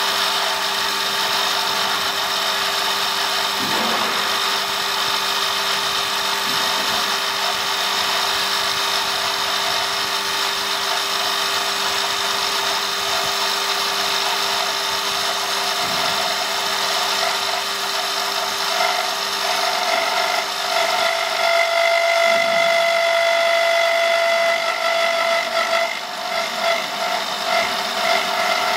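CNC wood lathe cutting a spinning wooden blank into a spindle: a steady whine from the machine with the hiss of the cutter shaving wood. About two-thirds of the way through, a higher whine grows louder for several seconds.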